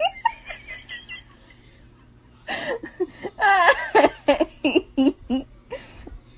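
A person laughing in short repeated bursts. The laughter trails off over the first second, pauses, then breaks out louder again about two and a half seconds in.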